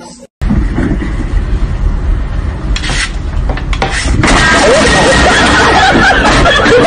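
A loud, noisy jumble of sound that gets louder about four seconds in, with people's voices over it.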